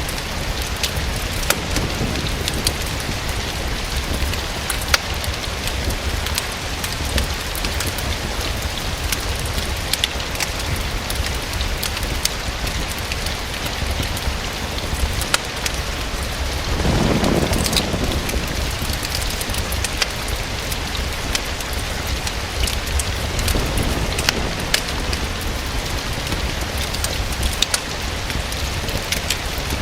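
Steady rain falling, with scattered sharp crackles from a fireplace fire. A low rumble swells and fades a little past the middle, and a fainter one follows several seconds later.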